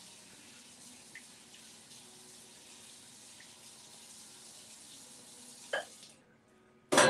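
Kitchen faucet running into a sink with a steady hiss of water, shut off about six seconds in; just before the end, a sharp, loud clatter.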